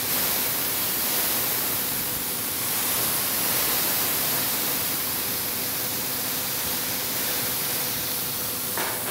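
Steady hissing spray of a liquid being misted onto smoked beef ribs, spritzing their dry tops, running for about nine seconds.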